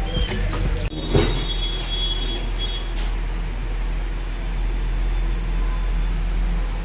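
A steady low mechanical hum, with a few sharp clicks in the first second and a brief high hiss from about one to three seconds in.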